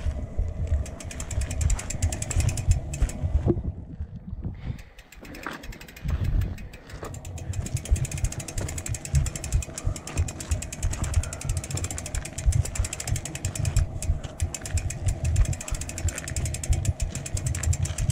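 Mountain bike freehub ticking rapidly as the bike is pushed uphill, with the wheel turning while the cranks stay still. The ticking pauses briefly about four seconds in. Under it is a low, rough rumble.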